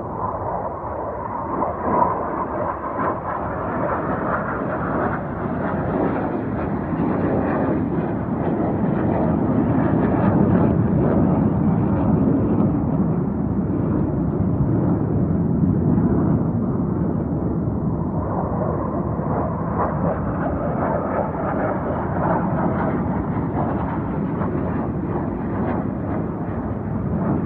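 Cat eating wet food from a paper plate close to the microphone: steady chewing and smacking made of many small wet clicks over a dense noise.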